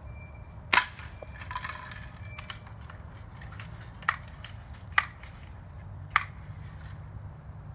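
Pump-action BB gun firing once with a sharp crack about a second in, followed by three fainter sharp clicks a second or so apart.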